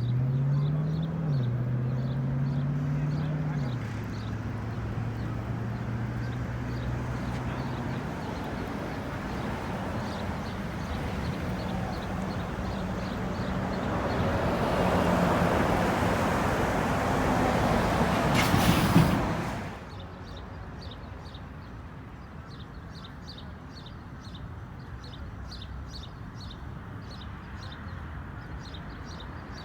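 Motor vehicle engines running, their pitch stepping up and down in the first few seconds. About halfway through, a rushing noise builds and then cuts off suddenly, leaving a quieter background with faint regular ticking.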